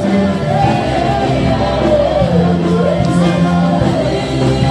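A church worship team singing a gospel song live through microphones, with keyboard and electric guitar accompaniment. A lead voice glides up and down over sustained bass notes.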